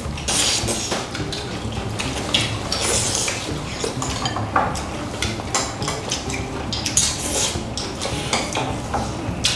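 Dinner-table sounds: chopsticks clinking and tapping against ceramic bowls and plates, scattered irregular clinks, as noodles are eaten from the bowls.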